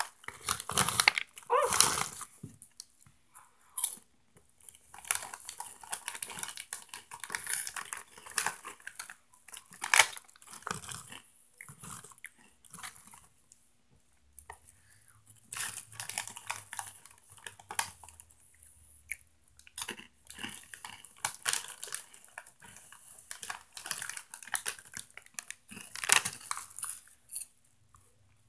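Crunchy Cheetos being chewed close to the microphone, with the snack bag crinkling as it is handled, in irregular bursts separated by short pauses.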